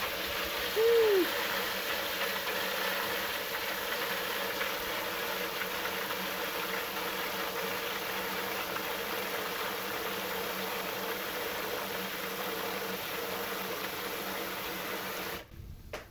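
Kitchen faucet on its spray setting running steadily into a plastic bowl of water and mushrooms in the sink, a steady hiss of water that cuts off abruptly about fifteen seconds in when the tap is shut. About a second in, a brief rising-then-falling tone stands out above the water.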